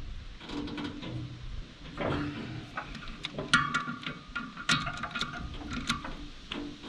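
A series of irregular metallic clinks and knocks, several ringing briefly, as steel tools and bolts are handled on a wood chipper's knife assembly during a blade change.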